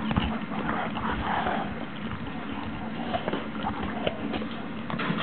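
Rottweiler mouthing and gnawing at a chew stick held in a hand, with scattered soft clicks and crunches from its teeth.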